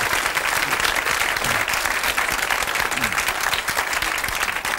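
Studio audience applauding steadily, a dense wash of many hands clapping.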